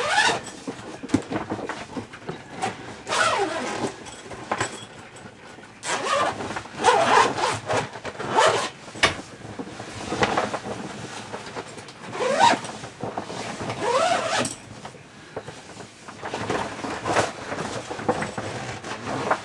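A zip on the bed's cover being pulled open in a series of separate rasping pulls a few seconds apart.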